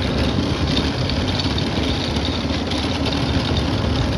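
ATV (quad bike) engine running steadily while it is ridden fast.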